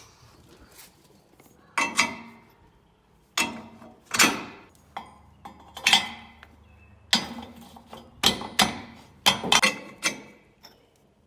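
Steel arms and lift cups of a two-post car lift being swung and set into place: about a dozen sharp metal clanks and clinks, unevenly spaced and coming faster in the second half, some with a short ring.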